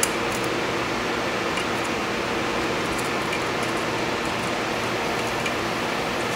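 Steady fan-like hiss and hum, with faint light metallic clicks scattered through it from lock picks working the pins of a pin-tumbler cylinder.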